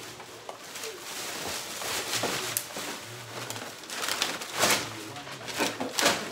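Gift bags and wrapping rustling in repeated bursts as they are handled and rummaged through.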